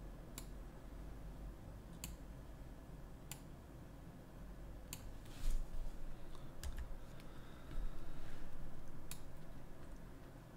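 Computer keyboard keys and mouse buttons clicking one at a time, roughly a second apart, while Blender shortcuts are used to scale and move an object. A low thump comes about five and a half seconds in and a longer low rustle about eight seconds in.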